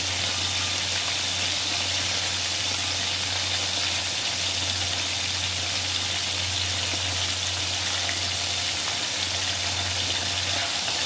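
Chicken pieces deep-frying in hot oil in a wok: a steady sizzling hiss, with a low steady hum underneath.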